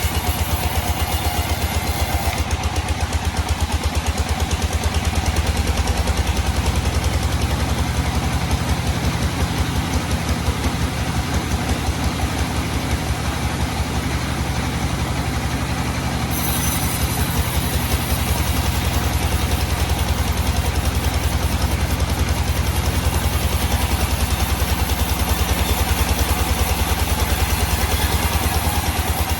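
Sawmill engine running steadily with a fast, even pulse.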